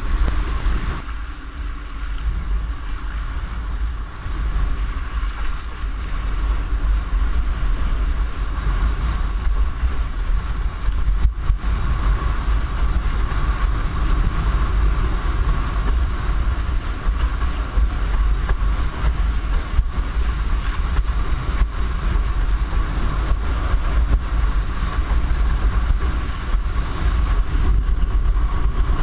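Wind buffeting the microphone of a rig-mounted action camera on a windsurfer planing in a strong breeze, with water rushing and spraying off the board. The rumble is steady and does not let up.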